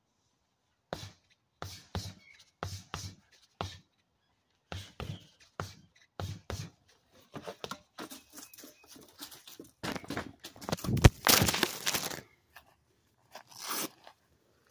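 Boxing gloves punching a stack of tires: irregular strikes in short combinations, each a dull thud with a sharp slap. A fast, dense flurry about ten to twelve seconds in is the loudest part.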